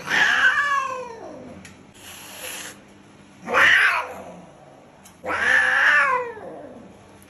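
Angry cat yowling: three long yowls, each falling in pitch, the first at the start and the others about three and a half and five seconds in.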